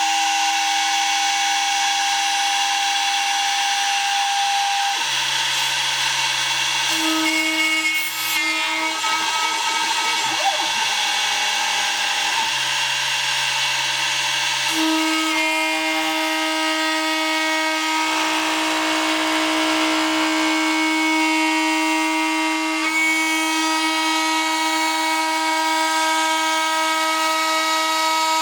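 Small DIY CNC router milling 2 mm aluminium sheet: a steady, loud whine of spindle and stepper motors, its pitched tones shifting to new notes every few seconds as the cutting moves change.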